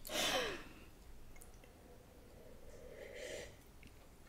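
A man's short breathy exhale as he clears his palate, then quiet; about three seconds in, a faint soft sip from a metal cup.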